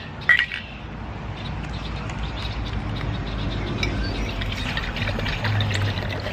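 A sharp clink just after the start, then outdoor ambience: birds chirping over a low rumble that slowly grows louder.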